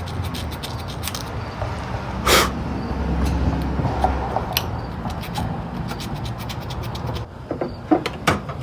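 Light clicks and scrapes of hand work on the outboard's ignition parts, with one sharp click about two seconds in and a few more near the end, over a steady low hum.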